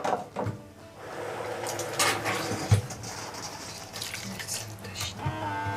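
Water poured from a plastic measuring cup into a pot of rice and cut taro. A steady pitched tone starts near the end.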